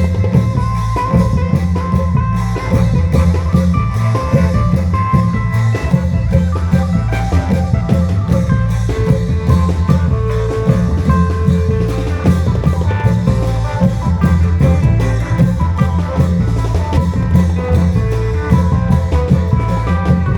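Isan klong yao ensemble playing: long drums keep a steady, driving beat under a khaen melody line.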